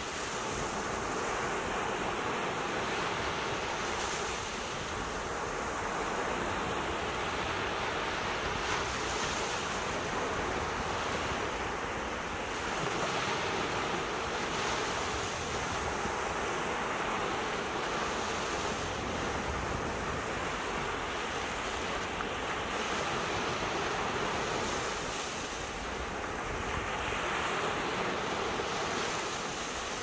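Ocean surf: waves breaking and washing up a sandy beach in a continuous wash that swells and eases every few seconds as each wave comes in.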